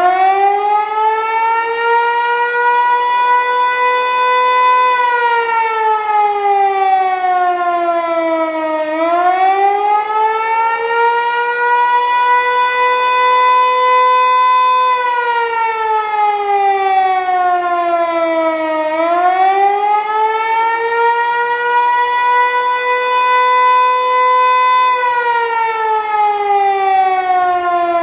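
Federal Signal Eclipse 8 electronic siren sounding a slow wail: the pitch climbs, holds high for several seconds, then glides down and climbs again, about every ten seconds.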